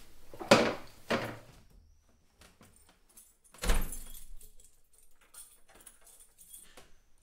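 Two sharp knocks or thuds and then a heavier thud, followed by a run of light clicking and jingling, like keys being handled at a wooden door.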